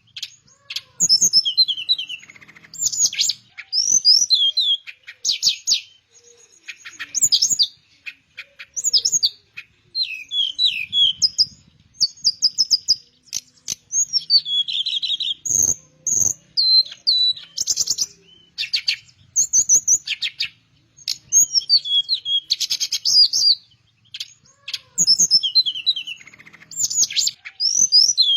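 Teledekan Melayu flycatcher singing: a string of short, high whistled phrases and rapid trills, one after another with brief pauses between them.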